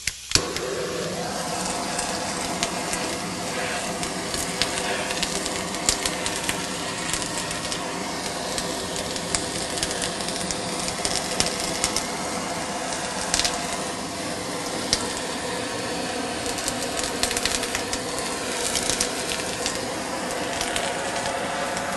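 Handheld butane torch burning with a steady hiss, lit with a sharp click as it starts. The flame is played over skewered shrimp on a hot griddle to brown them.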